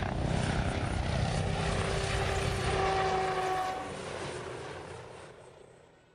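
RAH-66 Comanche stealth helicopter flying by, its rotor chopping with a steady whine over it, fading out over the last two seconds.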